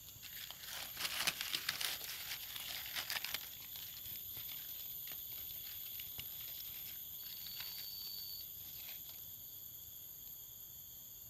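Rustling and crinkling, as of something being handled, for about the first three seconds, then a steady high-pitched whine with a brief extra tone about two-thirds of the way through.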